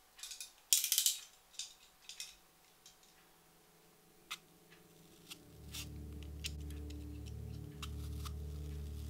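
Utility knife (box cutter) blade clicking and scraping against an apple, in a quick cluster of sharp clicks and scratches in the first few seconds, then a few single ticks. About two-thirds of the way in, a low, steady music drone swells up underneath.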